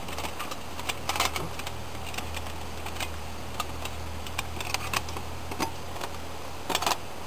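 The metal panels of a folding Sterno camp stove clicking and clacking as they are unfolded and fitted together: irregular sharp clicks, loudest about a second in and near the end.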